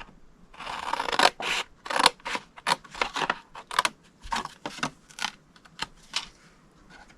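Scissors snipping through cardstock in a quick, irregular series of crisp cuts, with paper rustling between them.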